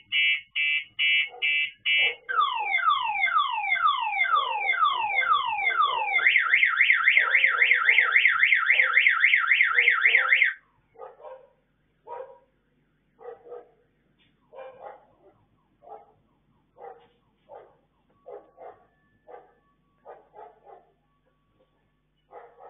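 A car alarm runs through its cycle of tones: rapid beeps, then repeated falling whoops, then a fast warble. It cuts off about ten seconds in. A dog then barks repeatedly, fainter, about once a second.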